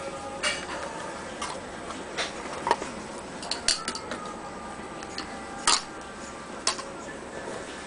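Light clicks and taps of small hard objects being handled, about a dozen at uneven intervals, over a faint steady background hum.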